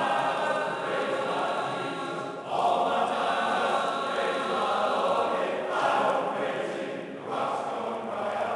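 A man singing in a church, slow and chant-like, in long held notes that move to a new pitch every one to three seconds.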